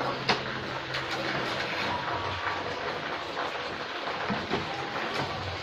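Wood fire crackling in a traditional wood-burning stove beneath a steaming rice steamer: a steady hiss with frequent small pops, and one sharper pop about a third of a second in.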